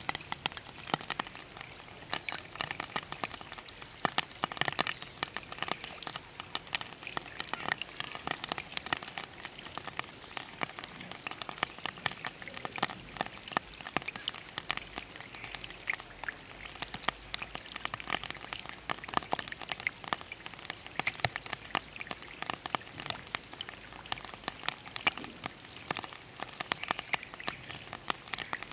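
Rain falling steadily into a sheet of standing floodwater: a dense, continuous splashing of countless individual drops hitting the water.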